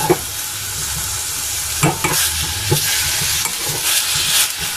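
Vegetables and fish bones and skin sizzling in hot oil in a stainless steel saucepan as they are turned with metal tongs, with a few sharp clinks of the tongs against the pan. They are being browned (sautéed) as the base of a fish broth.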